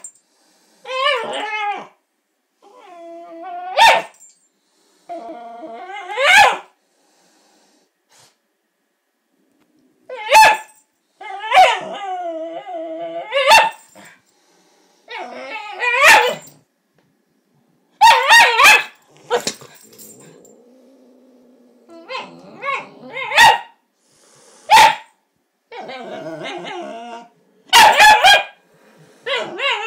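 Dog barking again and again, with drawn-out whining growls between the sharp barks, aimed at a cat in a standoff. The calls come in bouts a second or two long with short pauses, and there is a low, steady growl about two-thirds of the way through.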